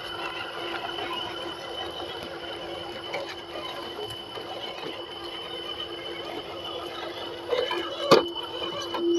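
Small brushed 370 electric motor and single-speed gearbox of an RC crawler whining steadily as it drives, with a sharp knock about eight seconds in.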